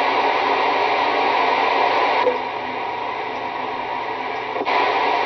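CB radio receiver hiss: steady band noise on the channel with no voice, dropping a step in level about two seconds in and coming back up near the end.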